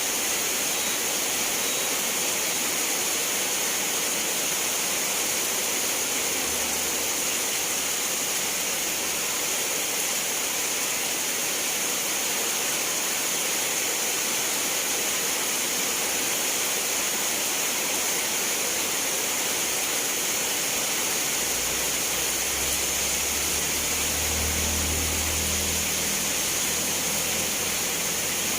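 Steady heavy rain falling, an even hiss with no breaks. A faint low rumble swells under it about three quarters of the way through.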